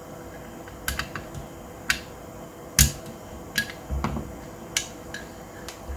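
Small metal and plastic parts of a Golden Eagle Hi-Capa 4.3 gas blowback gel blaster clicking and tapping against the frame as they are fitted during reassembly: about ten sharp irregular clicks, the loudest a little under three seconds in, with a duller knock around four seconds.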